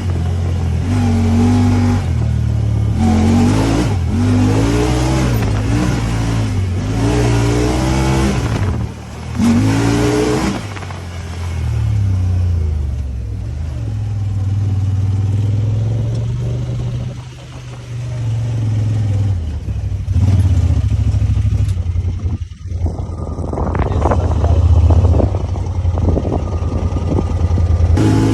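Honda Talon 1000R side-by-side's parallel-twin engine revving up and down again and again over the first ten seconds or so, then running more steadily at a lower pitch, with brief drops in power about two-thirds of the way through.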